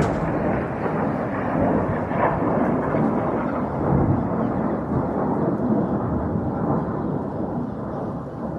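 Long rolling rumble of distant explosions from air-defence missile interceptions overhead, echoing like thunder and slowly fading near the end.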